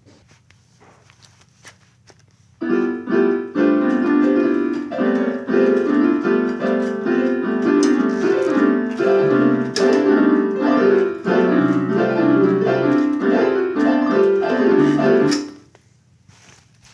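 Electronic keyboard banged with many keys at once, giving loud, choppy clusters of clashing notes. The clusters start about two and a half seconds in and stop near the end.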